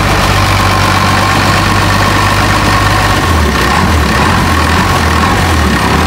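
Longtail boat's exposed inboard engine running steadily under way on its long propeller shaft. Its low drone wavers a little past halfway, over the rush of water and wind.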